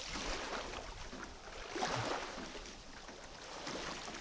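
Lake water lapping at the shore with wind noise, rising and falling in soft swells about two seconds apart.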